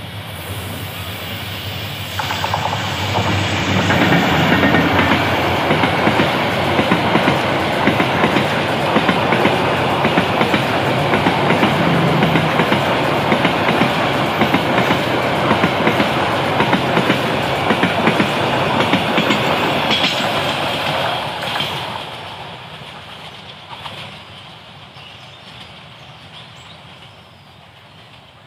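A diesel-electric locomotive and its passenger coaches pass close by, with wheels clattering rapidly over the rail joints. The noise builds over the first few seconds and stays loud, then fades quickly after about twenty seconds as the last coaches go by.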